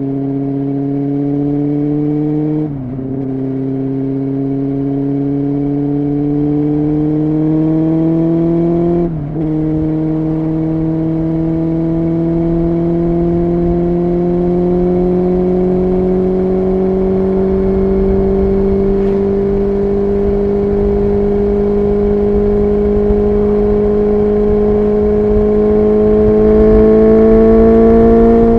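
Honda CBR600F3's inline-four engine pulling under steady throttle while riding, its note climbing slowly, with two brief dips about 3 and 9 seconds in and falling off right at the end. A low rumble of wind sits underneath.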